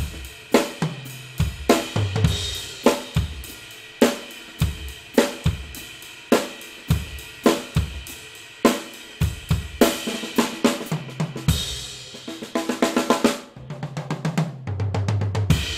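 Shallow pancake drum kit with zebrawood-over-mahogany shells, an 18x3" bass drum, a 12x4" snare and 10x3" and 13x3" toms under Evans heads, played in a steady groove with cymbals. Near the end a fast run of strokes leads into a fill on the toms that steps down in pitch, closing on a cymbal crash that rings out.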